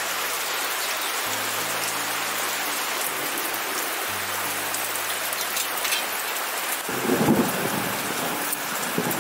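Heavy rain falling steadily on the surroundings, an even hiss throughout, with a louder low rumble about seven seconds in.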